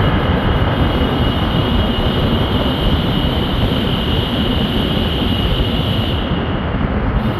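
Steady road and traffic noise from a car driving through a road tunnel.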